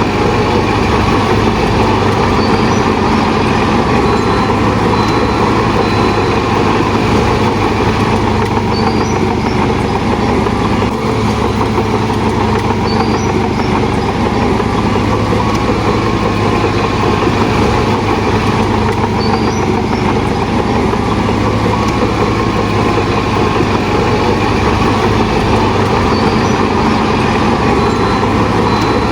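Shantui DH17 bulldozer's diesel engine running steadily.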